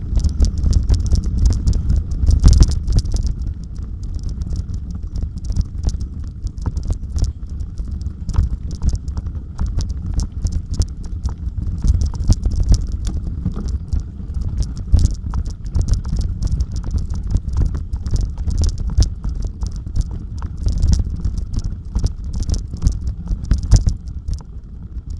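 Bicycle rattling and clattering over a rough off-road trail, with a constant low rumble of wind buffeting the microphone and dense irregular clicks from the bike and the ground.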